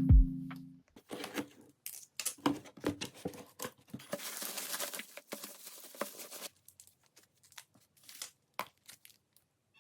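Crinkling and tearing sounds, like a wrapper or paper being handled. A longer continuous tear comes from about four to six and a half seconds in, followed by a few light ticks. Background music cuts off just under a second in.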